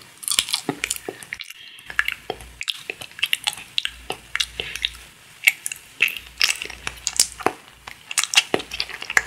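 Close-miked chewing of a mouthful of soft grilled fruit: irregular wet clicks and smacks of the mouth, several a second.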